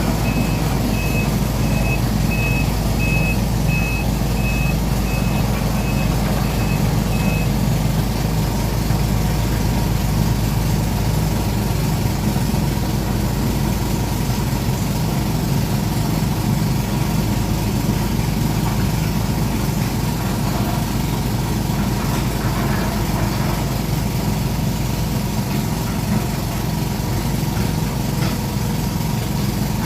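Excavator's diesel engine running steadily, with its travel alarm beeping about twice a second for the first seven seconds or so, then stopping while the engine runs on.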